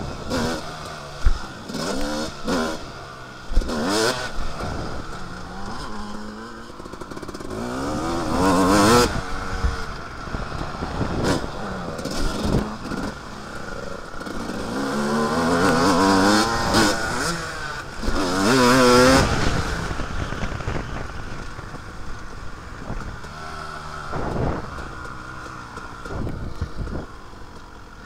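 Two-stroke motocross bike engine, heard from the rider's helmet, revving up through the gears and backing off several times, with two sharp knocks a few seconds in. The engine is quieter in the last part.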